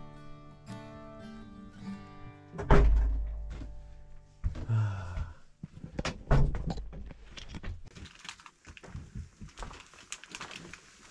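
Acoustic guitar music that stops about two and a half seconds in, followed by two heavy, deep thumps a few seconds apart, the loudest sounds here. Faint crackling follows near the end.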